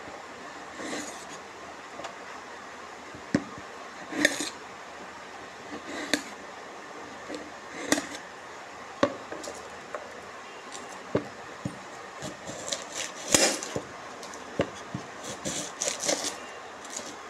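Kitchen utensils and cookware being handled: irregular clinks, knocks and short scrapes. They come closer together in the last few seconds, where the loudest one falls.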